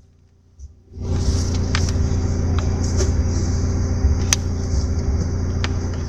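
Car engine running with a steady low rumble and hum, coming on suddenly about a second in, with a high hiss and a few sharp clicks over it.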